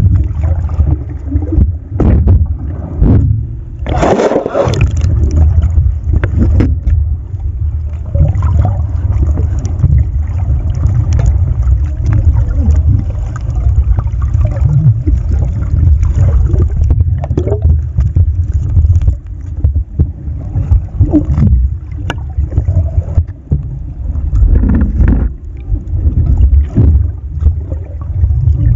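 Muffled underwater sound picked up by a submerged camera: a steady low rumble with water gurgling and scraping against the housing and the net, and a louder rush of water about four seconds in.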